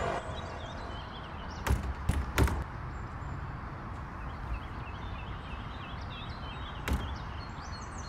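Several dull knocks and thumps from the back of a Jeep Wrangler: three close together about two seconds in and a single one near the end. Birds chirp in the background.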